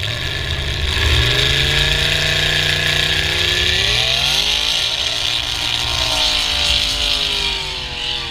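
Lifted modified-class mud-racing pickup's engine revving hard as it accelerates through the mud pit. Its pitch climbs steeply about four seconds in, holds, then falls away near the end, over a steady hiss.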